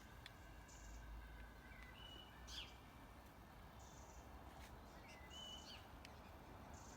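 Faint outdoor ambience with two short bird chirps, about two seconds in and again about five and a half seconds in, over a low steady background hiss.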